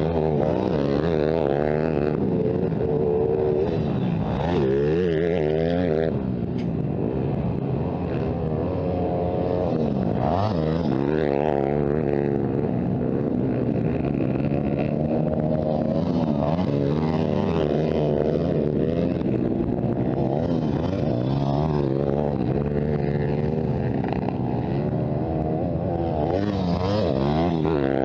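Several motocross bike engines revving, their pitches overlapping and rising and falling again and again as the riders throttle on and off.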